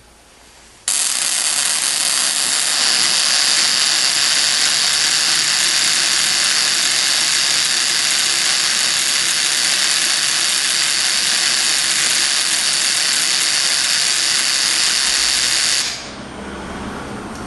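Ruhmkorff induction coil running: its vibrating interrupter buzzes and high-voltage sparks crackle across the discharge gap through corrugated cardboard. It switches on about a second in, holds a loud steady hiss for about fifteen seconds, and cuts off suddenly near the end.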